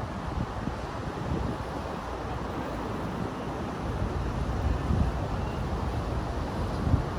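Wind buffeting a phone's microphone: a low, uneven rumble of gusts that grows stronger about four seconds in.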